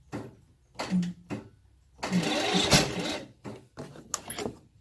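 Toro LX420 lawn tractor's starter briefly cranking the engine in short bursts, the longest about a second long midway, followed by a few sharp clicks; the engine does not catch. The battery is too weak to turn it over properly.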